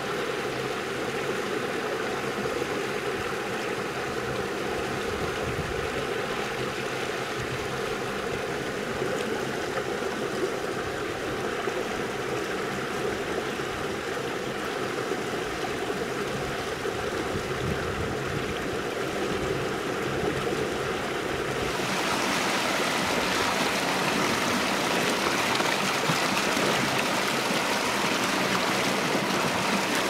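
Water spilling over a small concrete weir into a canal: a steady rushing splash. About two-thirds of the way in it turns brighter and a little louder.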